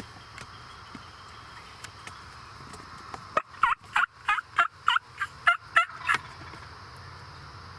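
Osceola wild turkey calling: a run of about ten loud, evenly spaced yelping notes, roughly three a second, starting about three and a half seconds in and lasting about three seconds.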